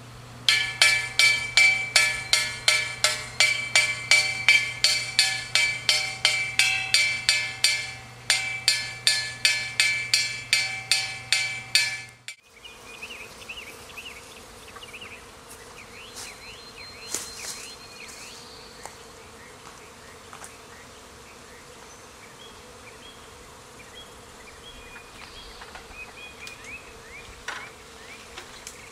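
Rapid, even percussive strikes with a ringing pitch, about three or four a second, for the first twelve seconds, then stopping abruptly. After that, a steady low hum from a honeybee swarm clustered in a tree, with birds chirping.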